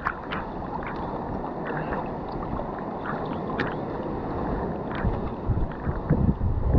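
Sea water sloshing and lapping against a GoPro held half-submerged at the surface by a swimmer, with scattered small splashes and drips. The sloshing grows heavier near the end.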